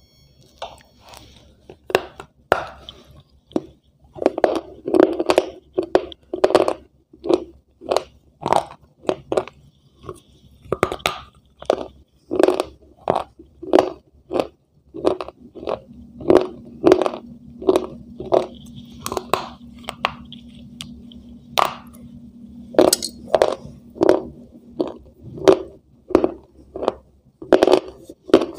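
Close-up crunching of a person chewing a brittle white food, sharp crunches coming about twice a second.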